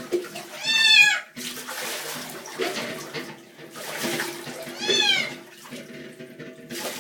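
A cat yowling twice in distress while being bathed, a loud drawn-out call about a second in and another about five seconds in, over running water.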